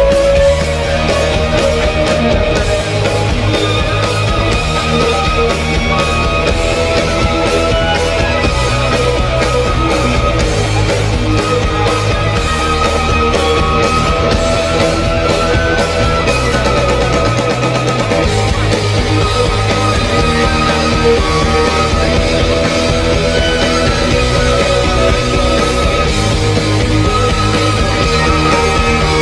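Violin playing a sustained melody live over a loud recorded backing track with heavy bass and drums.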